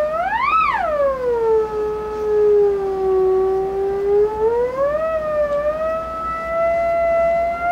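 Single-antenna theremin sounding one continuous tone that swoops up sharply and back down about half a second in, sags lower for a few seconds, then slowly rises again. The pitch shifts as the cat moves closer to or away from the antenna.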